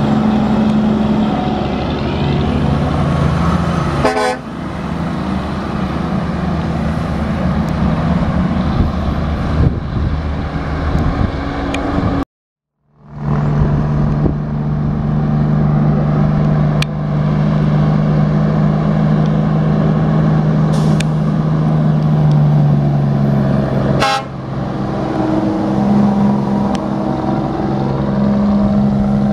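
Diesel engines of heavy tractor-trailer trucks running under load as they pass and climb, a strong steady drone. The sound cuts out completely for about half a second about twelve seconds in.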